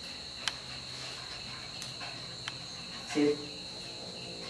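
A steady high-pitched whine runs throughout, with a few sharp clicks during the first half. A man says "sit" about three seconds in.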